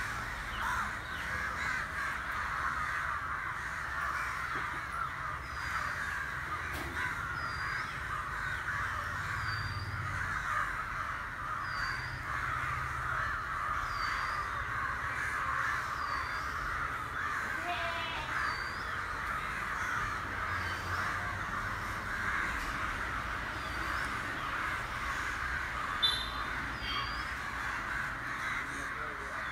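A large flock of crows cawing all at once in a dense, continuous clamour. A short high chirp from another bird repeats about once a second through much of it.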